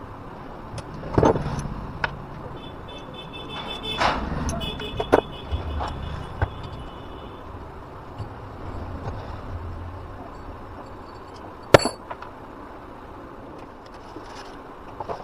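Steady background traffic noise with a few sharp knocks and clicks, the loudest near the end, and a steady high tone held for a few seconds about three seconds in.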